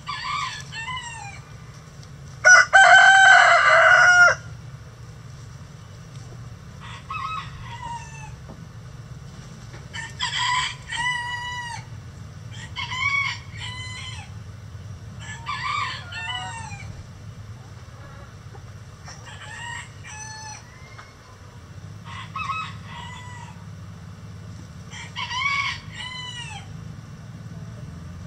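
Rooster crowing: one loud, long crow about two seconds in, followed by shorter, fainter crows roughly every three seconds from other roosters in the flock. A steady low hum runs underneath.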